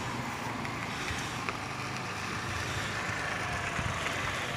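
Steady street noise from running vehicle engines, with a few faint ticks.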